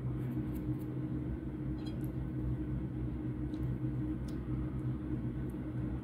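A steady low mechanical hum with a few faint small clicks scattered through it.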